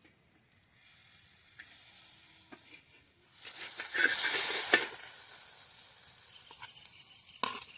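Banana-leaf-wrapped rohu fish parcels (paturi) sizzling in a hot pan. The sizzle swells to its loudest about four seconds in, then settles to a steady lower hiss, with one sharp knock near the end.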